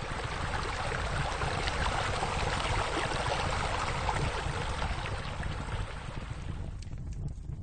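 Rushing, splashing water, a steady hiss that swells over the first couple of seconds and fades away near the end, over a low rumble.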